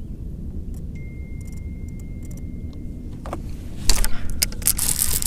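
Steady low rumble, then about four seconds in a sudden loud rattling as a bass is hooked and the baitcasting reel is cranked fast to fight it.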